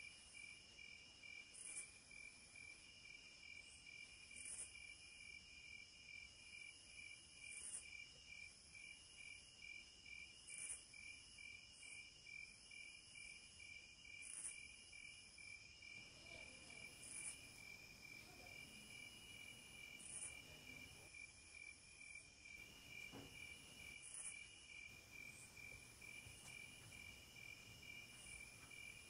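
Faint insect chirping: an even pulse of high chirps, about two to three a second, over a continuous high trill, with now and then a brighter chirp standing out.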